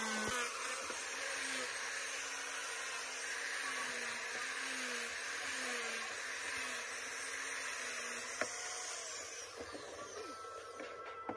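Handheld electric angle grinder fitted with a sanding pad, running as it sands a wooden block, its motor whine wavering in pitch as it is pressed into the wood. It dies away near the end as the grinder is switched off and set down.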